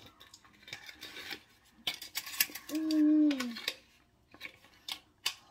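Paper cupcake liners crinkling and rustling as they are peeled apart from a stack, with short crackles throughout. Midway a child hums one long 'mmm' that falls in pitch at its end while tasting brownie batter.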